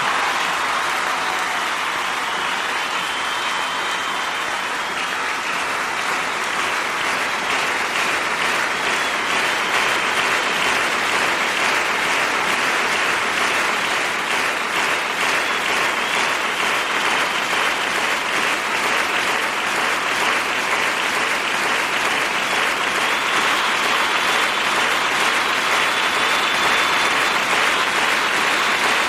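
Crowd applauding and cheering steadily, a dense, continuous wash of clapping.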